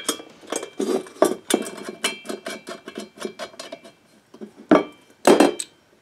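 Metal hardware clinking and clattering on a workbench: bolts, washers and a steel socket being handled, many quick clicks with short metallic rings, and two louder clatters near the end.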